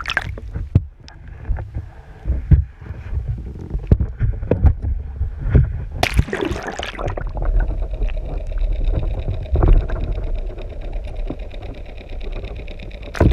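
Sea water sloshing and rushing around a GoPro camera held in the water from a moving sailboat, with a low rumble, irregular knocks and a loud splash about six seconds in. From about seven seconds on a fast, even buzz runs underneath.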